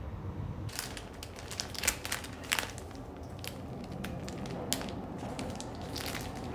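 Plastic packaging crinkling as it is handled: a stiff plastic bag holding a cleaning mitten glove, and a clear plastic sleeve. The crackles start under a second in and run on irregularly, with the sharpest ones a couple of seconds in.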